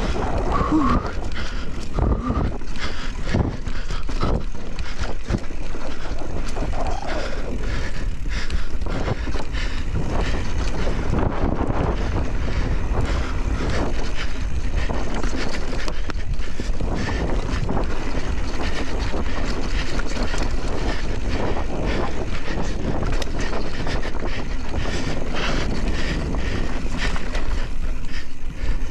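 Mountain bike riding fast down a dirt trail: a steady rush of wind on the microphone over tyre noise, with frequent short clatters and knocks from the bike over the ground.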